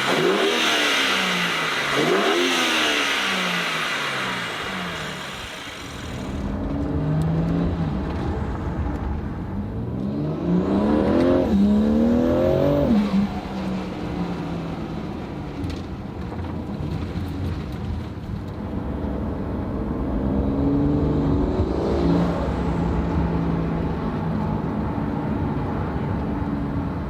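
Twin-turbo 3.0 L S58 inline-six of a BMW G8X M3/M4 fitted with an open airbox intake. It revs up and down quickly several times at first, then settles into a lower, heavier running sound. About halfway through it pulls up in pitch through a long acceleration, and it rises again more briefly later on.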